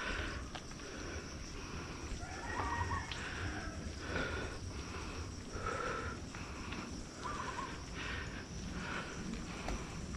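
A mountain biker breathing hard and fast while power-climbing, with a loud breath about once a second and a low rumble underneath.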